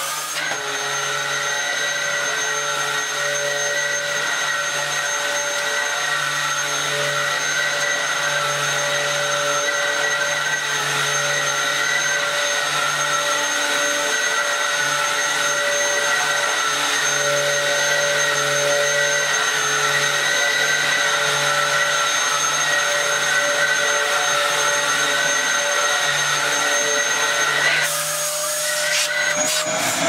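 Dyson DC07 upright vacuum cleaner running steadily, working normally on its newly fitted mains cable as it is pushed over carpet. About two seconds before the end a louder hiss joins in.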